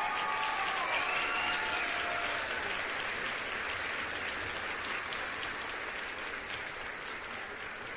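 Applause, a dense crackle of clapping that slowly fades. A few ringing tones slide down in pitch and die away in the first couple of seconds.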